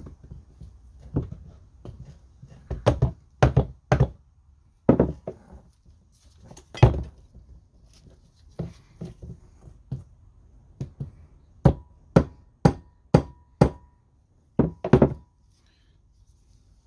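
Irregular knocks as the tight-fitting motor core of a Tongsheng TSDZ2 mid-drive is tapped to drive it out of its casing. Near the end comes a quick run of five even taps about half a second apart, with a faint ring after them.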